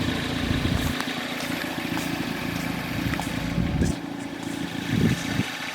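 A car engine running steadily at idle, a low even hum with a few faint clicks.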